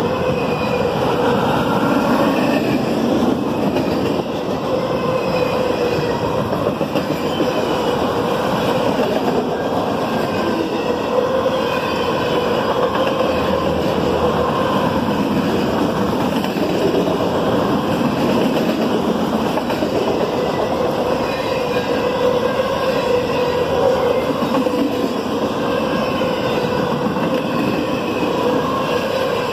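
Norfolk Southern freight train rolling past: a steady, loud rumble and clatter of the cars' wheels on the rail, with a wavering ringing tone from the wheels.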